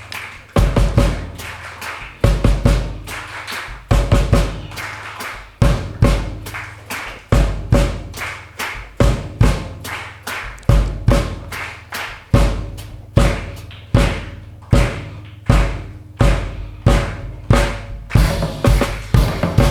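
Drum kit played live in a steady groove, with deep bass-drum hits about once a second and quicker snare and cymbal strokes between them.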